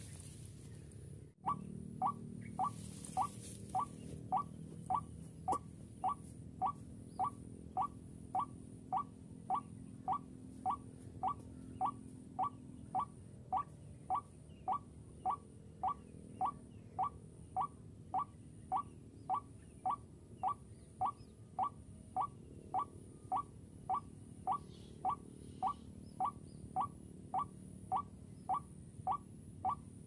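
A recorded white-breasted waterhen call played through a speaker as a lure: a long monotonous series of short identical notes at about one and a half a second. It starts after a brief break about a second and a half in.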